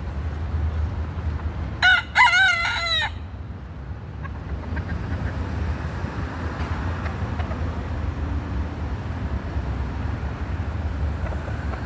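A rooster crows once, about two seconds in: a short first note, then a longer wavering one, together about a second long. A steady low background rumble runs underneath.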